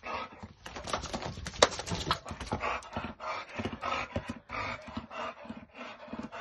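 A dog panting and sniffing in quick short breaths as it noses at a snake, with scattered sharp clicks, the loudest about a second and a half in.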